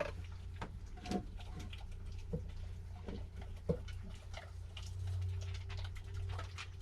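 Irregular light clicks and taps, several a second, over a steady low hum.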